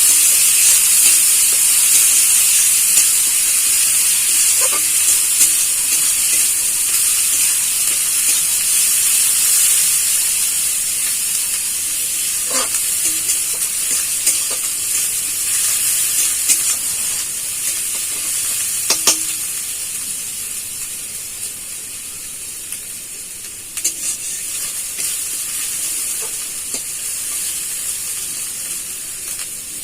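Onion and garlic paste sizzling as it fries in hot oil in a kadai, stirred with a spatula that clicks against the pan a few times; the sizzle slowly dies down as the paste fries.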